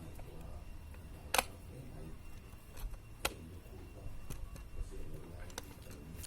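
A few scattered sharp clicks over a low steady hum, the loudest about a second and a half in and again a little after three seconds.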